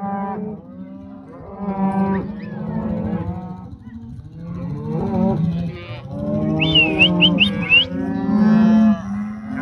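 Beef cows and their calves mooing and bawling, many calls overlapping one another without a break.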